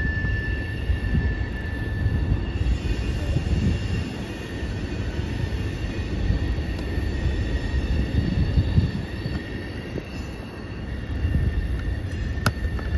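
Norfolk Southern freight train rolling across a stone-arch railroad bridge: a steady low rumble from the cars, with thin, steady high-pitched wheel squeal above it. A single sharp click comes near the end.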